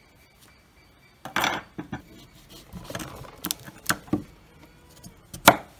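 Kitchen knife cutting through pumpkin and knocking on a wooden cutting board: a scatter of sharp chops starting about a second in, the loudest near the end.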